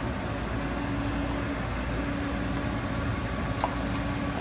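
Steady background hum and hiss, with one faint click about three and a half seconds in.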